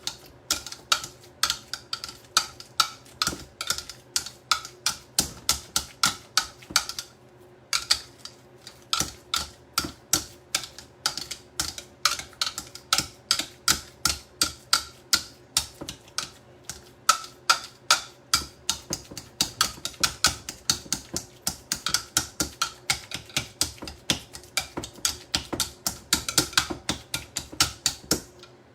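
A utensil clicking repeatedly against a bowl as guacamole is mixed and mashed, about two to three strikes a second, with two short pauses.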